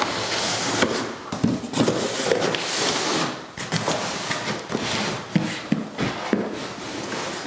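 Cardboard box rustling and scraping as it is handled and pushed aside, with scattered knocks and clicks.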